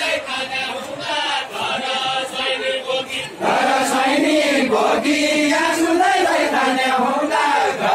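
Group of men singing a Deuda folk song together in a chanting style, the traditional song of the linked-arm Deuda dance of Far-western Nepal. The singing grows louder about three and a half seconds in.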